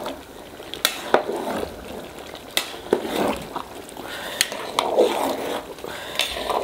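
A metal ladle stirring half-cooked chicken biryani rice in a large pot, with rough swishing through the rice and several sharp clinks of the ladle against the pot.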